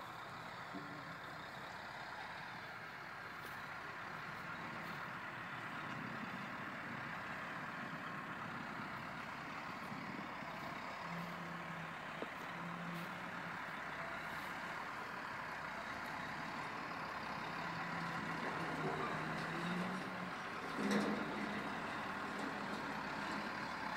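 Heavy diesel truck's engine running steadily while the truck moves slowly, loaded with a 40 ft shipping container. A brief louder burst comes near the end.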